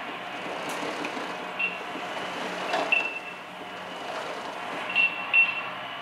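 Earthquake simulator running a simulated magnitude-8 earthquake: a steady rumbling and rattling noise with a few knocks and several short, high pings.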